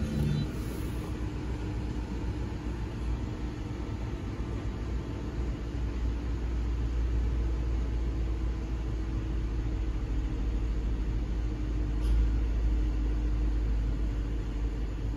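Engine idling in the cabin of a 2016 Jeep Grand Cherokee, with a steady hum from the air-suspension compressor as the vehicle raises on its air springs. The low rumble grows louder about six seconds in, and there is a faint click about twelve seconds in.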